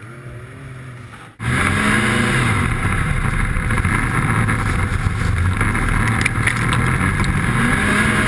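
Fairly quiet for about the first second and a half, then an abrupt cut to a loud snowmobile engine running under way, its pitch rising and falling with the throttle.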